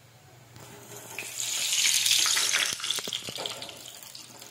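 Patties deep-frying in hot oil: the sizzle swells to a loud hiss about a second in as they are stirred and lifted with a metal slotted spoon, then eases. A few sharp clinks of the metal spoon against the pan come near the three-second mark.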